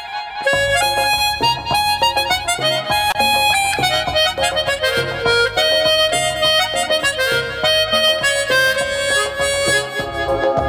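Harmonica playing a Hindi film-song melody in held, stepping notes over instrumental backing music.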